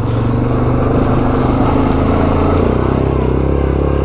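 Yamaha Grizzly 700 ATV's single-cylinder four-stroke engine running steadily under way on a trail; its note shifts about two-thirds of the way through.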